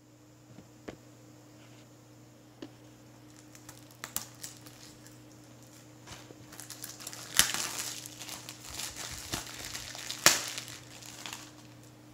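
Cellophane shrink-wrap being torn and peeled off a plastic Blu-ray case, crinkling and crackling. It starts with a few sharp clicks, then builds to dense crinkling, with the loudest crackles about seven and ten seconds in.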